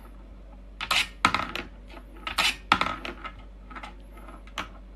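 Irregular metallic clinks and rattles, about seven sharp clatters, as a kitten paws at a small wooden toy with a metal wire rail and track.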